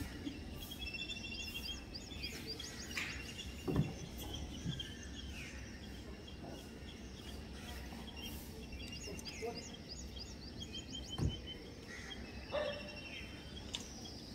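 Outdoor ambience full of small birds chirping and twittering in quick repeated high notes over a steady low rumble, with two short knocks, about four seconds in and about eleven seconds in.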